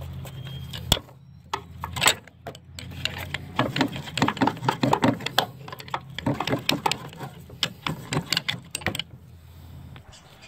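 Hand ratchet wrench clicking in rapid runs as it spins a nut off the engine mount, after a few single clicks.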